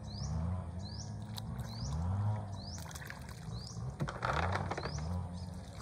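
A short high chirp, rising in pitch each time, repeated one to two times a second over a low steady murmur, with a brief rush of water-like noise about four seconds in.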